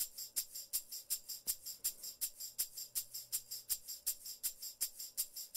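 Isolated raw multitrack tambourine and shaker parts played back without the rest of the band: a steady pop-punk groove of bright jingling hits, with an accented stroke about every third of a second and lighter strokes in between.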